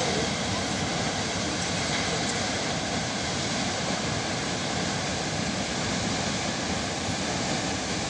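Steady roar of a large waterfall, falling water pounding into its plunge pool.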